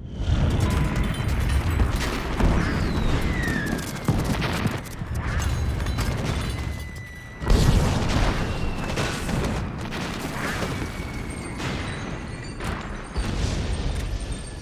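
Movie sound effects of a huge explosion: a continuous rumbling blast with repeated booms and a louder hit about seven and a half seconds in. Film score music plays underneath.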